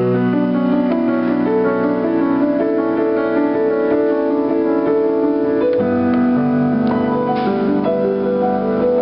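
Piano improvising a tune: held chords with melody notes on top, and a new, lower chord coming in a little before six seconds.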